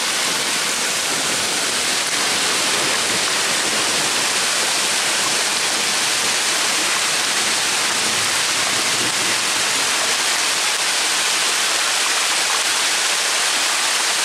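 Heavy hailstorm: hailstones and rain falling thickly in a dense, steady hiss that does not let up.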